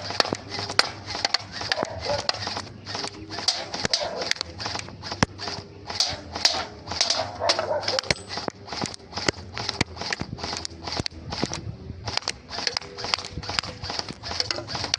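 Bohan AR-15 electric gel blaster firing shot after shot, a sharp pop with a hiss, at about two or three shots a second with uneven spacing.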